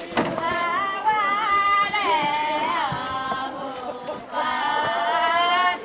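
Singing in a chant-like style: a vocal melody with long held notes that slide up and down between phrases, with a short dip about four seconds in.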